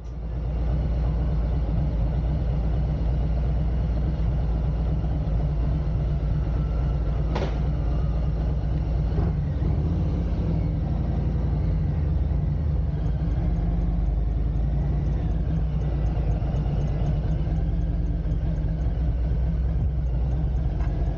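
Harley-Davidson Street Glide Special's Milwaukee-Eight 114 V-twin running at a steady low idle rumble as the bike rolls slowly along, with one sharp click about seven seconds in.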